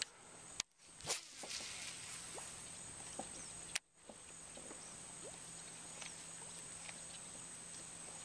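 Insects calling in a steady, high-pitched, even drone over quiet water. Sharp clicks break in at about half a second, a second, and just before four seconds in, with the sound cutting out briefly after the first and last.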